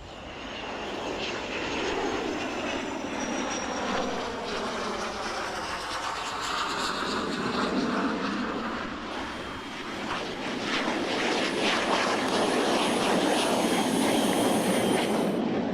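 Fixed-wing aeroplane engine noise, swelling in over the first couple of seconds and staying loud as the aircraft passes, with its pitch gliding. It cuts off suddenly near the end.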